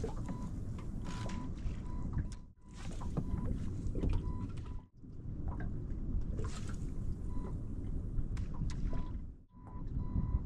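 Wind rumbling on the microphone over water moving around a small boat, with a faint high electronic beep repeating on and off. The sound cuts out briefly three times.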